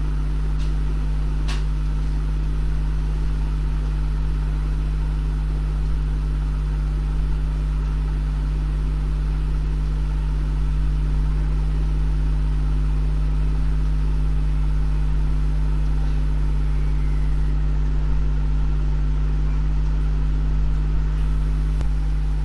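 Steady low machine hum that does not change, with two faint clicks in the first couple of seconds.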